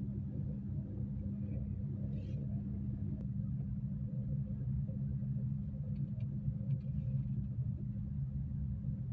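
Steady low engine drone and rumble of a car moving slowly.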